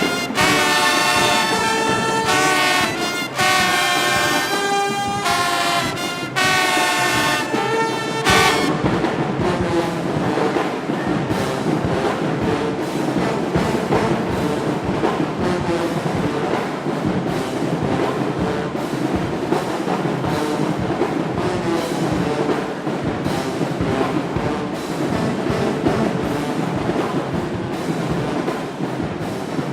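Marching band brass section playing loud chords in short, punchy phrases. About eight seconds in, the clear notes give way to a denser, blurred wall of band sound.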